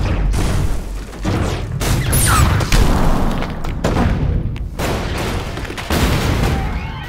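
A string of explosive charges going off one after another, several sharp blasts a second or so apart over a continuous deep rumble. It starts abruptly.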